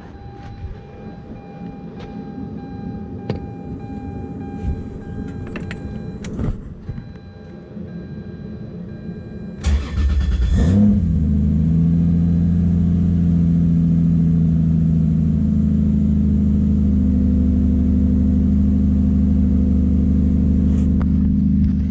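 Toyota 2JZ straight-six, swapped into the car, cranking and catching about ten seconds in, then idling steadily and evenly. Before it starts there is a lower hum with a few clicks.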